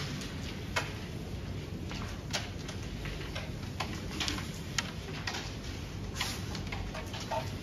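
Sharp, irregular clicks of carrom strikers and coins hitting each other and the board, over the steady low hum of a tournament hall.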